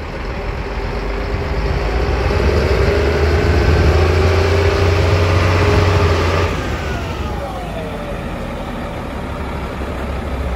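Caterpillar D350D articulated dump truck's diesel engine pulling as the truck drives up and past. It gets louder and climbs slightly in pitch over the first few seconds, then drops off with a falling pitch about six and a half seconds in as the truck passes and eases off.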